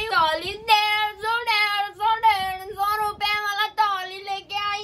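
A young girl singing a melody unaccompanied, in long held notes with short breaks between phrases.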